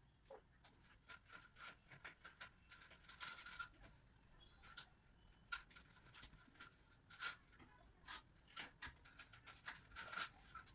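Faint, irregular short scraping strokes, coming several a second at times and then pausing, like a hand tool scratching at a hard surface.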